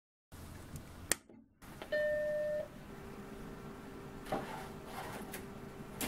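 Macintosh SE powering up: a sharp click about a second in, then its startup chime, a single steady tone about two-thirds of a second long, followed by the steady hum of the running machine with a few soft knocks near the end.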